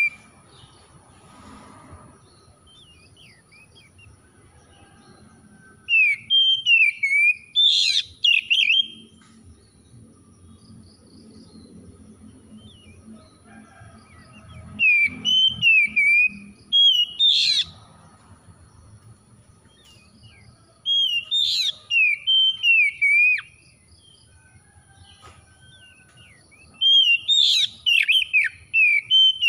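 Oriental magpie-robin singing: four bursts of loud, rapid whistled phrases, each two to three seconds long, with looping notes and sharp upward flicks, separated by several seconds of quiet.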